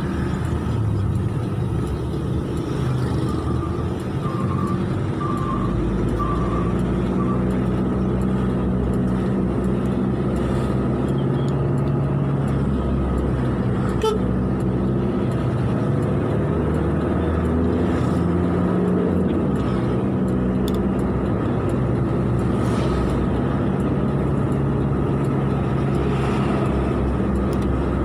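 Road vehicle driving in traffic, heard from on board: a steady engine hum with road noise, its pitch rising and falling as the speed changes. A few brief high beeps about five seconds in.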